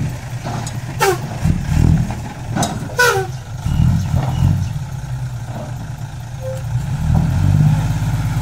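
Tipper truck's diesel engine running while its raised bed dumps a load of soil and stones, which slides out onto the ground. A few short, sharply falling squeaks come in the first three seconds.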